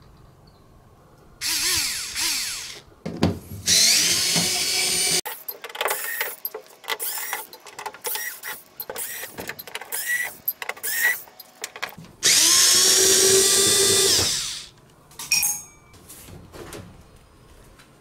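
Cordless electric screwdriver backing screws out of a washing machine's sheet-metal top panel. Its motor runs in several bursts of a few seconds, its pitch gliding as it spins up. In between comes a run of short clicks and knocks.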